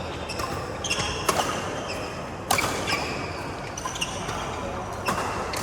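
Badminton rally on an indoor court: sharp racket hits on the shuttlecock about a second apart at times, the loudest about two and a half seconds in, with sports shoes squeaking on the court floor between strokes.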